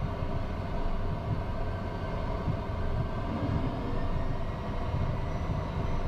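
Twin turbofan engines of a Cessna Citation jet running at low power as it begins to taxi: a steady low rumble with a faint, constant high whine.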